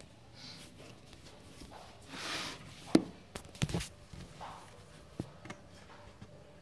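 Handling noise from a hand on the recording phone and tripod: scattered clicks and knocks with some rustling, the loudest a sharp click about three seconds in, followed by a few quicker knocks.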